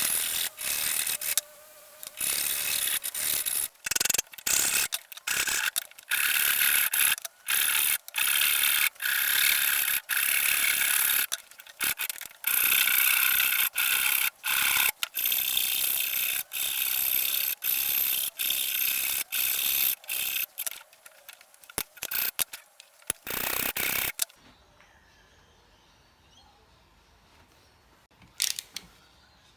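Hand-worked scraping and rubbing strokes on the metal of an antique monkey wrench, in quick bursts with brief pauses. They stop a little after twenty seconds, and one short scrape comes near the end.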